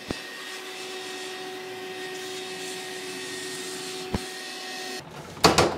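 A motor runs steadily with a whirring hum, with a sharp click near the start and another about four seconds in. The hum cuts off about five seconds in, and a loud knock follows just before the end.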